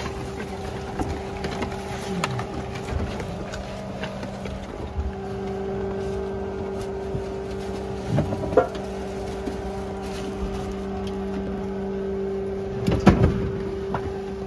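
A steady mechanical hum inside a Twin Otter aircraft cabin, growing louder about five seconds in. Scattered clicks and a few louder knocks and bumps are heard, the loudest about eight and thirteen seconds in.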